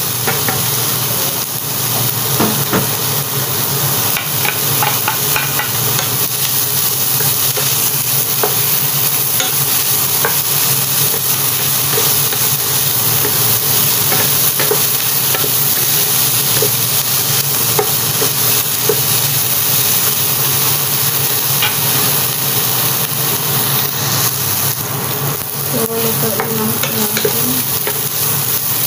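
Diced ham, hot dog and chicken sizzling steadily in oil in a nonstick frying pan, stirred and tossed with a wooden spatula that scrapes and taps against the pan.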